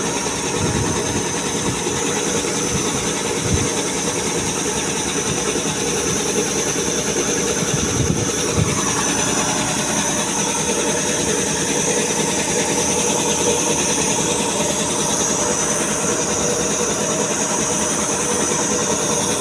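Puma 5 HP piston air compressor running steadily without load, being run in after new piston rings were fitted.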